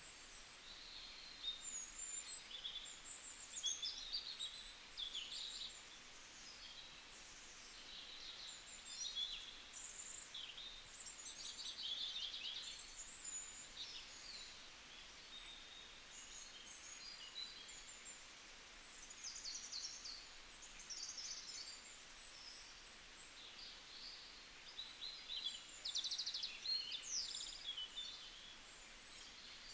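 Several songbirds chirping and trilling in overlapping high phrases over a faint steady hiss.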